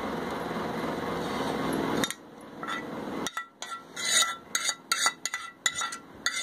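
Steel ladle scraping and knocking against a frying pan as chicken masala is spooned out onto rice in a metal pot: a quick run of sharp metallic clinks and taps in the second half. Before that, a steady rushing noise that cuts off about two seconds in.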